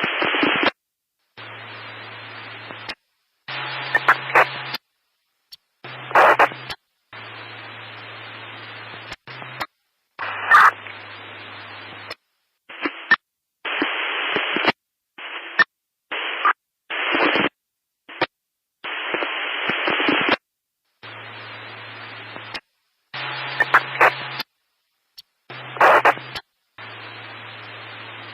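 Static noise that cuts in and out: hiss that keeps breaking off into dead silence every second or two, with sharp crackles and, in some stretches, a low hum underneath.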